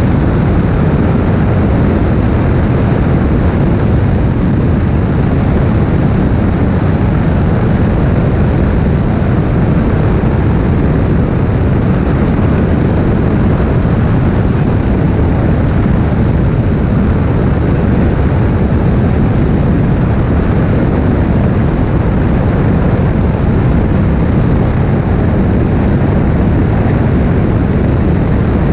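Steady, loud drone of a Cessna 182R in flight: its 300 hp Continental IO-550-D six-cylinder engine and propeller blended with a rush of wind over a camera mounted outside the airframe, without change.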